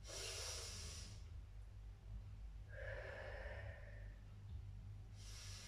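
A woman breathing slowly and deeply in and out, three faint breaths about two seconds apart, over a low steady hum.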